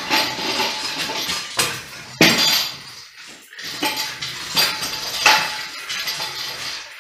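Irregular metal clanks and clinks as a heavy tractor wheel's steel rim is shoved and turned against the hub to line up the lug holes. The loudest knock comes about two seconds in.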